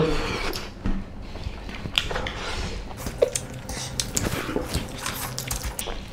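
Eating by hand: fingers squishing and mixing rice with meat curry on plates, with chewing and scattered small clicks and taps.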